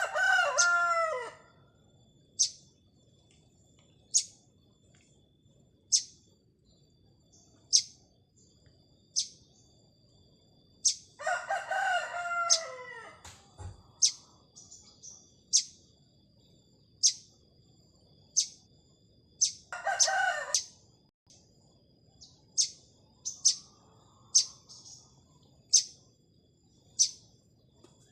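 A rooster crowing three times, near the start, about eleven seconds in and about twenty seconds in, over a small bird's sharp chirps repeated every one and a half to two seconds.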